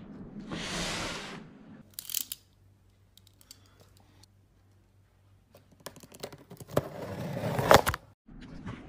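Cardboard shipping box being handled: a brief scraping hiss at the start, a few sharp clicks, then rubbing, tapping and crinkling that build to a loud knock near the end.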